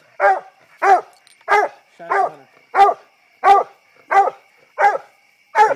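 Hunting dog barking at a tree with a raccoon treed in it: short, loud barks in a steady rhythm, about three every two seconds, nine in all.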